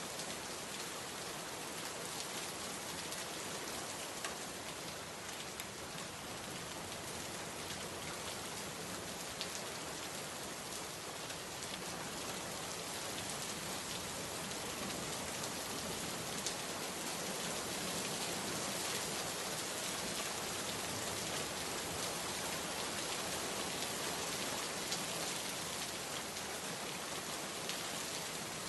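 Steady hiss of rain with faint scattered patter, growing slightly louder partway through.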